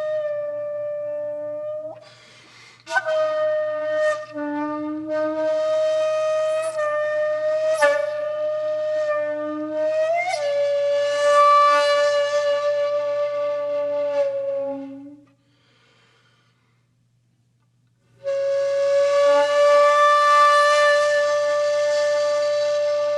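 Background music led by a flute playing long held notes, with a brief break about two seconds in and a silence of a few seconds past the middle before it resumes.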